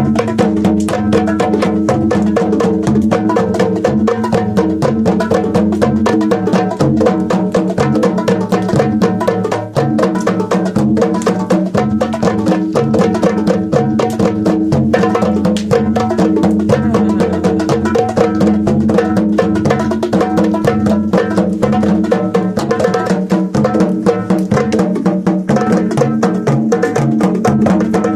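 Hand drums played fast and densely, a continuous stream of strikes, over steady held low tones.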